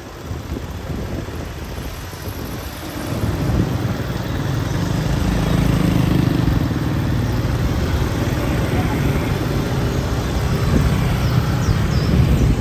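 Street traffic: motor vehicle engines running close by, growing louder about three seconds in.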